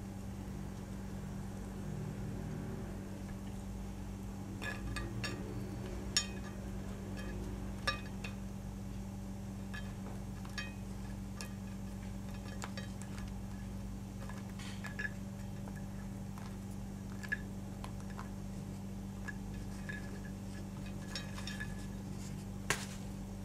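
Steady low hum under scattered light clicks and clinks of small hard objects being handled, the sharpest near the end.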